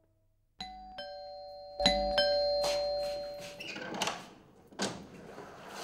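Ding-dong doorbell chime ringing twice, each time two chime notes whose tones ring on and fade away, followed by a couple of sharp clicks.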